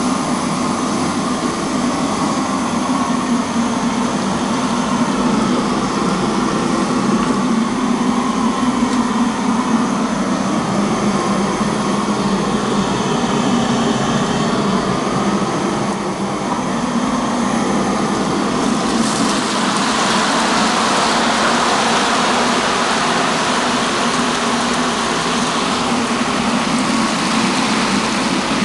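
Steady roar of commercial gas wok burners at full flame. About two-thirds of the way through a louder hiss joins it and holds.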